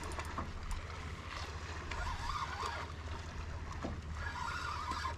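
Water lapping against the hull of a small fishing boat, with wind and a steady low hum underneath.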